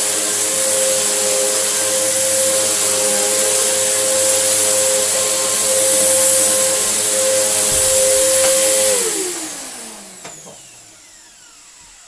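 Samsung SU3364 1800-watt upright vacuum cleaner running with a steady motor whine and a strong airy hiss, which the owner takes for a huge air leak somewhere. A low bump comes shortly before it is switched off about nine seconds in, and the motor winds down in a falling tone.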